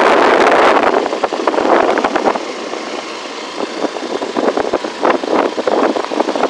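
Wind rushing and buffeting on the microphone of a phone carried on a moving open vehicle, with the vehicle's engine running underneath. The noise is loudest in the first second.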